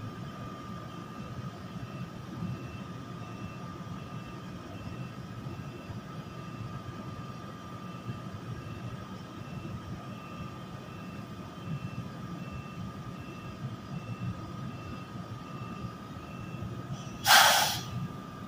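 NJ Transit ALP-46A electric locomotive standing at the platform, giving a steady high whine over a low rumble. Near the end comes a short, loud burst of air hissing out.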